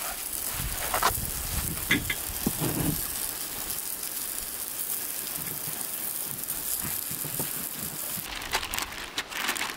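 Walleye fillets frying: a steady sizzle that sets in at once, with a few light knocks in the first three seconds. The sizzle thins out near the end.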